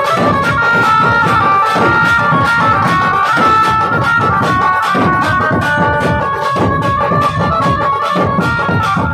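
A dhumal band playing a savari procession tune: fast, dense drumming under a high, held, reedy melody line, amplified through a large loudspeaker stack.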